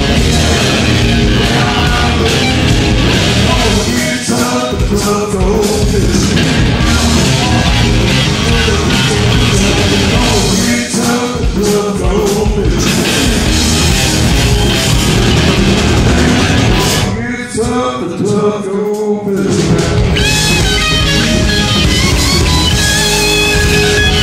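Live southern rock band playing loud, with electric guitars, bass and drum kit. The band drops out briefly about 17 seconds in, then comes back in with a guitar lead.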